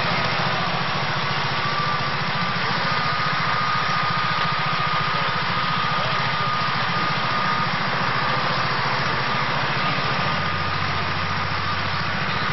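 An engine running steadily at an even speed, with a thin high whine held over it.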